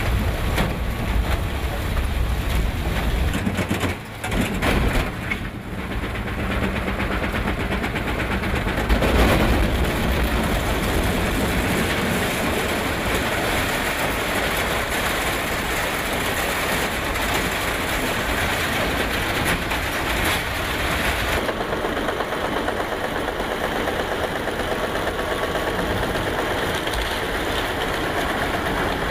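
Heavy crushing or shredding machinery running with a steady, noisy mechanical sound. It dips briefly about four seconds in, swells around nine seconds, and changes abruptly near twenty-one seconds.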